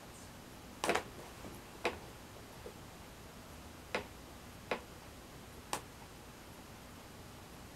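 A series of sharp clicks or taps, roughly one a second and unevenly spaced, the first the loudest, dying out about six seconds in.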